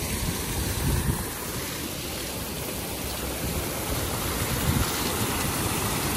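Fountain water splashing steadily as jets arc from dog statues' mouths into the basin, with low rumbles of wind on the microphone twice.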